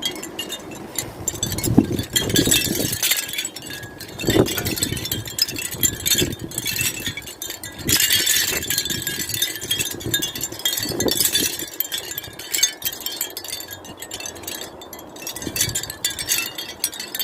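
Small garden wind chimes jingling in the wind: many quick, irregular clusters of high metallic strikes, with gusts rising and falling underneath.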